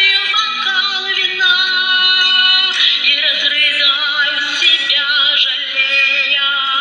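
A song: a woman's voice singing held, wavering notes over instrumental backing.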